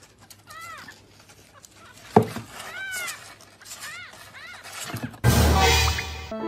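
A kitten mewing: about four short, high calls that rise and fall. A sharp knock comes about two seconds in, and a louder rush of noise starts near the end and stops abruptly.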